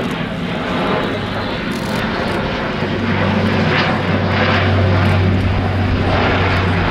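Airbus A400M's four TP400-D6 turboprop engines and eight-bladed propellers droning steadily as the aircraft flies past. A low, even propeller hum strengthens from about three seconds in.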